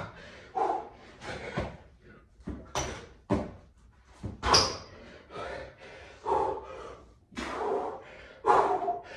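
A man breathing hard and exhaling sharply in short bursts, about once a second, while doing burpees. Thuds and slaps of hands and feet hitting a tiled floor come in between.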